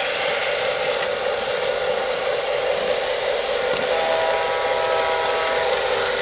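LionChief RS3 model diesel locomotive running with a steady hum, its sound system sounding a held diesel horn from about four seconds in.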